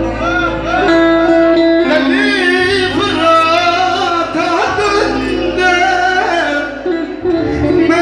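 A man singing a Turkish folk song live through a microphone, his voice wavering and ornamented, over amplified instrumental backing with held notes and a bass line.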